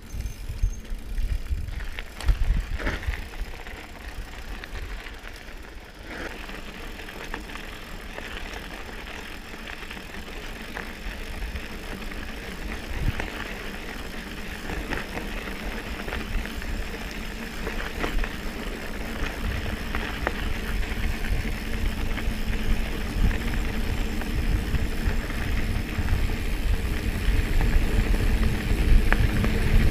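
Mountain bike rolling downhill: tyre noise on the road and then on loose gravel, with rattles from the bike and wind rumbling on the microphone, growing louder toward the end.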